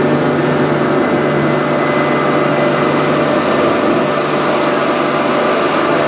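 Twin Yamaha 300 outboard engines running steadily with an even hum.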